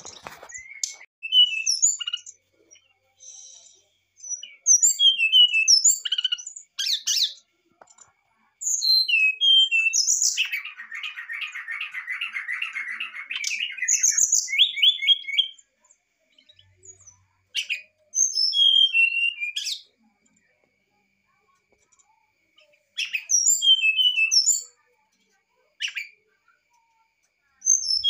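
Brown-chested jungle flycatcher singing in varied phrases of short, high, falling whistled notes, with pauses between them. About ten seconds in it gives a rapid buzzy trill that lasts about three seconds.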